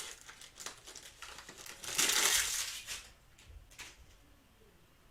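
Trading-card pack wrapper crinkling as it is handled, with one louder stretch of crinkling lasting about a second, about two seconds in.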